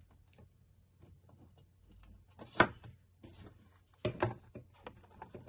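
Plastic clicks and knocks as the white plastic housing of a plug-in watt meter is picked up and handled. One sharp click comes about two and a half seconds in, then a quick cluster of knocks about four seconds in, with light ticks between.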